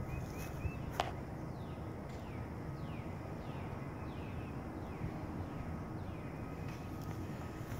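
A bird calling outdoors in a series of short, falling notes, roughly two a second, over a low steady rumble. One sharp click comes about a second in.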